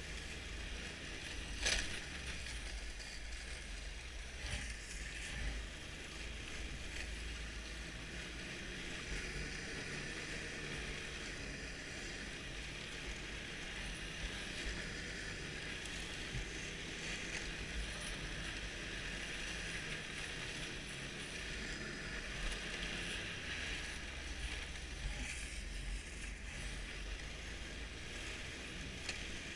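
Snowmobile running along a packed snow trail: a steady drone of engine and track, with a single sharp knock about two seconds in.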